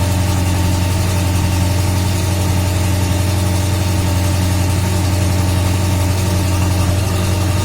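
VAZ classic (Lada 2101–2107) running with the raised rear axle shaft turning, its brake drum off: a steady hum with a strong low tone. The reassembled axle shaft bearing seemingly no longer rattles.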